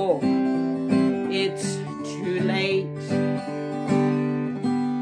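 Acoustic guitar playing the song's closing bars, picked notes followed by a final strummed chord near the end that is left ringing and fading out.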